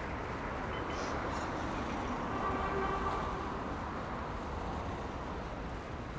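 Steady city street noise of passing traffic, with a brief high hiss about a second in.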